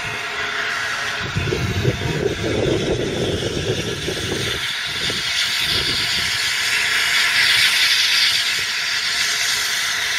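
Three-cylinder steam locomotive 60163 Tornado running light at low speed, with a steady hiss of steam that grows louder in the second half. About a second in there is a rough low rumble lasting about three seconds.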